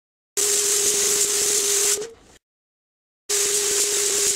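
Air-fed paint spray gun hissing in two bursts of about two seconds each, with a steady low whistle-like tone under the hiss, as enamel is sprayed onto the car body. Each burst cuts off abruptly.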